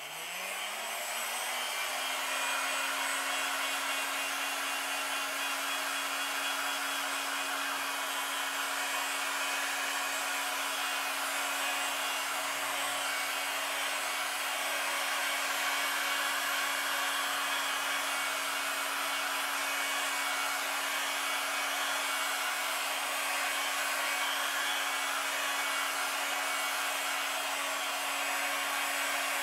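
Electric heat gun switched on: its fan motor spins up with a rising hum over about two seconds, then runs steadily with a constant rush of air.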